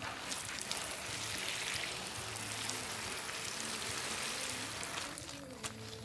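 Water showering from a watering can onto a seedling's leaves and the soil, a steady spatter that tapers off about five seconds in.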